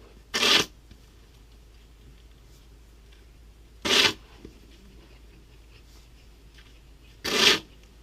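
Snow shovel working through deep snow in three short strokes, about three and a half seconds apart.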